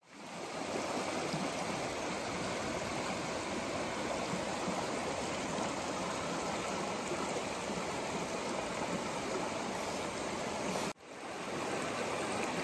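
Shallow, rocky mountain stream running steadily over stones. It fades in at the start and cuts out for a split second about eleven seconds in, then carries on.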